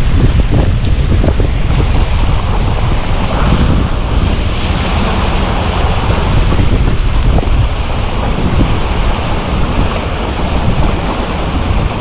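Strong wind buffeting the microphone: a loud, steady rushing noise with a heavy low rumble.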